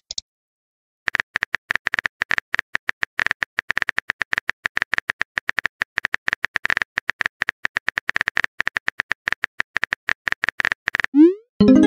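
Keyboard typing sound effect: rapid, irregular clicks for about ten seconds while a chat message is being typed. Near the end a short rising pop and a chime mark the message being sent.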